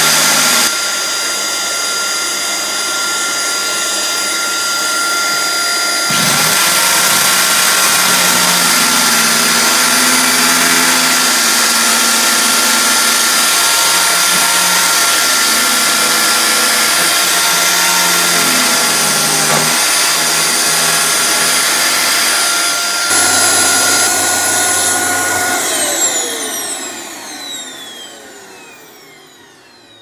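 Angle grinder in a dust shroud cutting a groove into a wall, with a canister vacuum cleaner running on the shroud's hose to draw off the dust. About 25 seconds in the motors are switched off and wind down.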